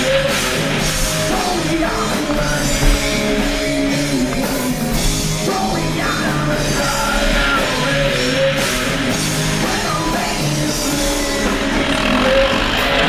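Rock music with singing and drums.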